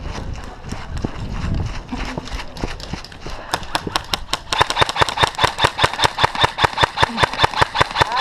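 Running steps and wind rumble on a helmet camera. From about three and a half seconds, a rapid, even string of shots from an ASGI G4-A1 airsoft rifle, about six sharp snaps a second.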